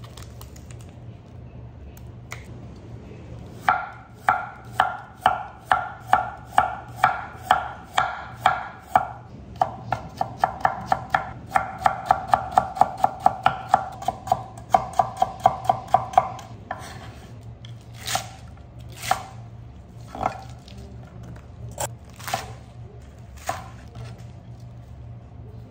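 Chef's knife cutting a carrot into thin strips on a wooden cutting board: a steady run of sharp knocks about two a second that quickens to about three a second, each with a short ring. After that, a few slower single cuts through leafy greens, over a low steady hum.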